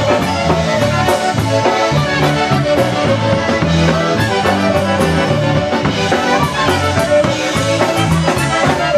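Live polka band playing an instrumental passage: Chicago-style concertina and electric bass over a steady dance beat.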